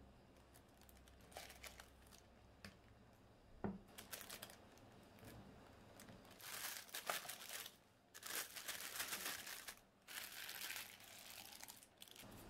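Thin plastic piping bag crinkling and rustling as batter is loaded into it and it is handled, in several long stretches of crackly rustle. A few light knocks come in the first few seconds.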